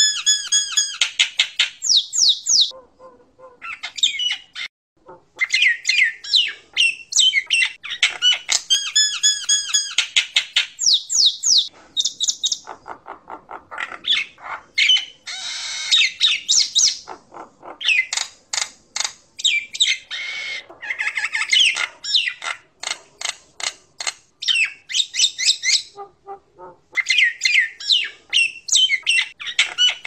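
Common myna (jalak nias) singing a long, varied song of squawks, whistled chirps and fast clicking rattles, in bursts with brief pauses about three seconds in and again near the end.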